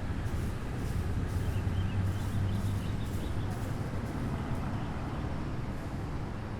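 City street traffic: a steady low rumble of vehicles passing, over a wash of road noise, swelling a little about two seconds in. Faint high chirps sound briefly in the middle.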